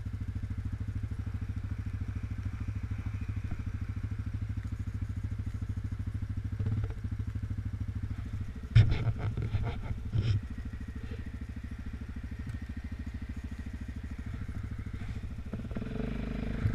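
Quad's engine running at steady low revs, heard close up from the quad itself, with a burst of loud clattering knocks about nine seconds in.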